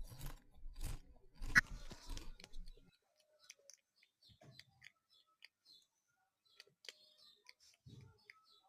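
Soft crunching, rustling clicks repeat for about the first three seconds. After that there are only faint, scattered short bird chirps.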